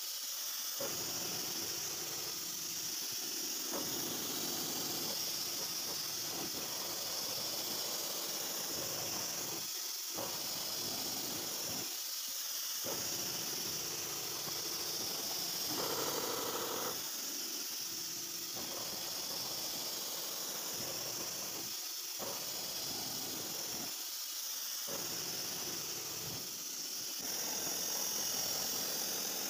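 CNC vertical machining center milling a metal block with an end mill: a steady high-pitched hiss of the spindle and cutter, with a brief louder tone about sixteen seconds in and a rise in level near the end.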